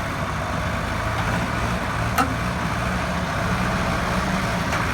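Heavy truck diesel engine running steadily under load, with one brief sharp click about two seconds in.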